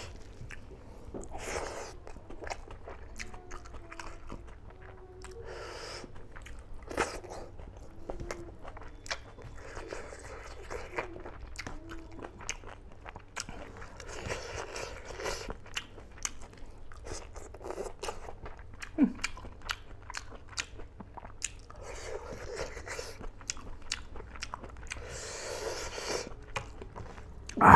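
Close-up chewing and biting of smoked pork and rice, with many short, sharp wet mouth clicks scattered throughout.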